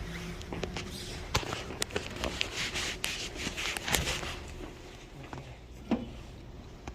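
Footsteps with scattered sharp clicks and knocks of handling over a faint steady hum.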